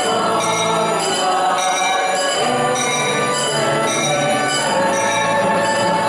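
Bells ringing continuously, many overlapping ringing tones struck again and again, over sustained music.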